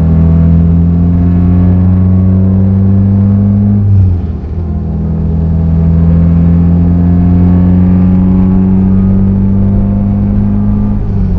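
Naturally aspirated Honda K20Z3 four-cylinder in a Civic EK coupe, with a 3-inch exhaust, pulling hard under acceleration. The engine note climbs slowly and breaks briefly for a gear change about four seconds in, then climbs again to a second shift near the end.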